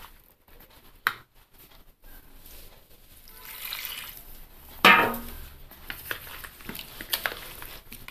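Salt-water brine from salting the tender mangoes poured from a steel bowl onto spiced mangoes, with a loud knock near the middle and a metal spoon stirring and scraping through the wet pickle.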